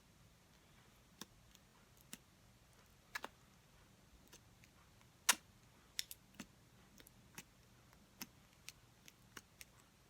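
Scattered small clicks and taps of handling a plastic marker, its lid and slime as the slime is pressed into the lid, about fifteen in all, the loudest about five seconds in.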